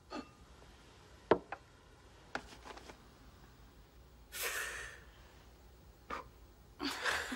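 A boy blowing out a birthday candle: a short puff of breath about four seconds in, then a second shorter puff near the end. A few light clicks and knocks come earlier.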